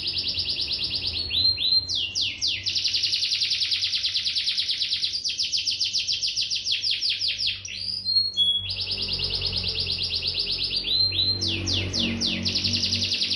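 Domestic canary singing: long, fast rolling trills of rapidly repeated notes, each lasting a few seconds, broken by a few short separate chirps.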